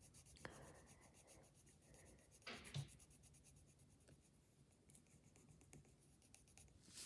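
Faint scratching of a graphite pencil on paper as small strokes are drawn, with one slightly louder brief sound about two and a half seconds in.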